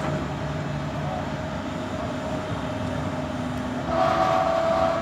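Excavator running: a steady diesel engine sound with a held hydraulic whine, which grows louder with extra higher tones about four seconds in as the hydraulics take load.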